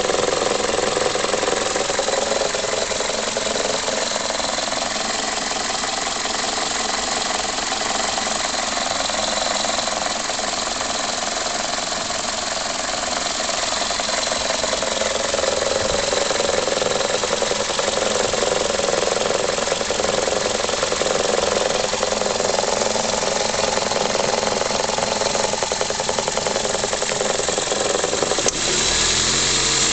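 Toyota Corolla E12's 1.6-litre 3ZZ-FE VVT-i four-cylinder engine idling rough, a fault whose cause the owner does not know. The sound changes abruptly near the end.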